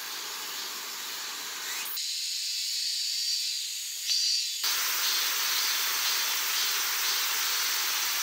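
Steady high hiss of outdoor forest ambience, changing abruptly in texture about two seconds and again about four and a half seconds in.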